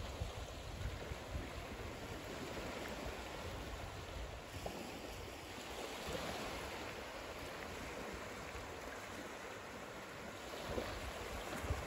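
Small waves lapping and breaking on a shallow beach at low tide, a steady wash of surf, with gusts of wind rumbling on the microphone near the start and near the end.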